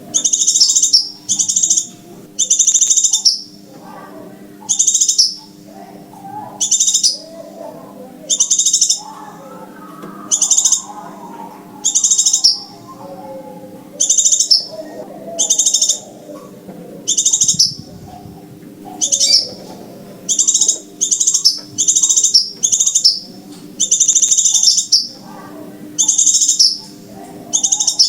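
Crimson sunbird (sepah raja) calls played as a trapping lure: short, high-pitched chirping bursts repeated about once a second, over a faint low hum.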